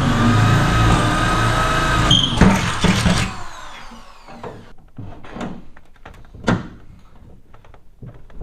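A steady mechanical whir with a rising tone at its start, lasting about three seconds, followed by scattered light knocks and clicks of tools and metal being handled.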